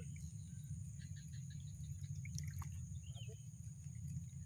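Insects droning steadily at a high pitch over a low, steady rumble, with a few faint short chirps.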